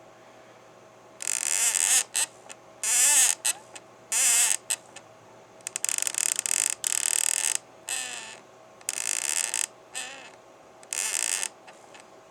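HPI Baja 5B 2.0 1/5-scale RC buggy squeaking: about nine high, wavering squeaks at irregular intervals, some brief and some lasting over a second.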